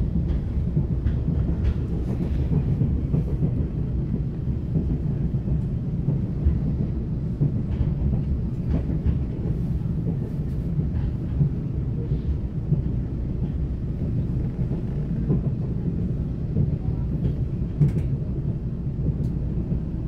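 Steady low rumble of a Taiwan Railways express train running at speed, heard from inside the passenger car, with a few faint clicks from the wheels and car.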